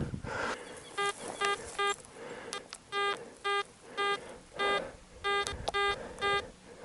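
Metal detector sounding a target: a buzzy, steady-pitched beep repeated about twice a second as the coil sweeps back and forth over a metal object, starting about a second in.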